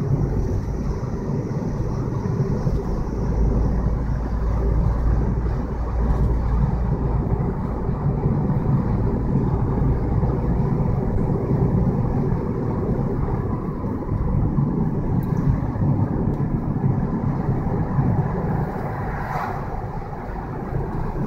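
A car driving steadily through a road tunnel, heard from inside the cabin: a low, even rumble of tyres and engine, with a brief brighter hiss near the end.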